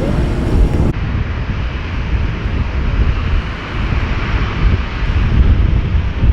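Loud jet airliner engine noise with wind buffeting the microphone. About a second in, the sound changes abruptly at an edit.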